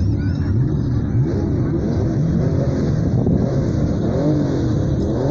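Several off-road race trucks' engines revving together at the starting grid, their pitches rising and falling over one another.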